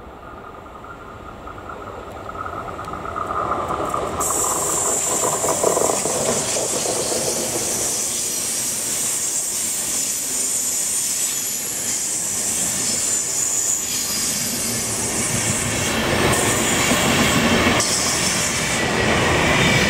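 DB Class 101 electric locomotive hauling an Intercity train past, growing louder over the first four seconds as it nears, with a steady whine at first. Then the coaches roll by with wheel-on-rail noise and a high-pitched squeal of wheels on the curved track.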